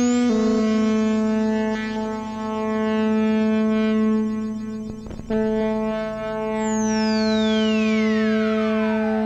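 Synthesizer playing a self-generating Krell patch: a held, pitched drone rich in overtones, dipping briefly about five seconds in, with a long downward pitch sweep beginning about two-thirds of the way through.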